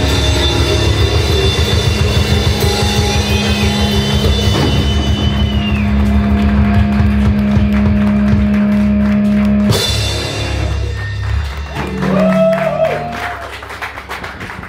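Live rock band with drums, electric bass and electric guitar playing loudly over a held low bass note. About ten seconds in the full band cuts off suddenly, leaving scattered drum and cymbal hits and wavering guitar tones that die away as the song ends.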